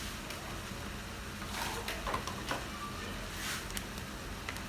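Vegetables frying in oil in a pan, a low steady sizzle, with a few soft clicks and scrapes.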